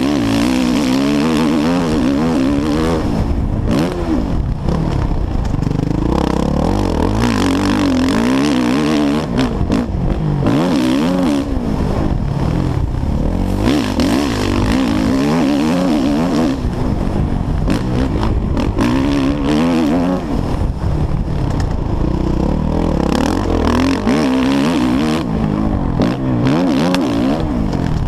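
Suzuki RM-Z450's single-cylinder four-stroke motocross engine revving hard and dropping back over and over as the rider works the throttle and gears around the track, its pitch rising and falling every second or two. A steady rushing hiss and some rattling clatter run beneath it.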